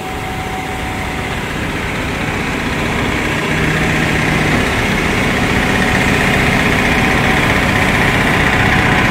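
An engine or motor running steadily, with a rushing noise that grows gradually louder.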